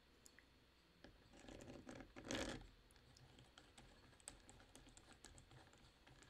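Faint plastic clicks and taps as the side cover and tensioner knob of a 6-inch cordless mini chainsaw are handled and fitted back by hand, with one brief louder scrape a little over two seconds in.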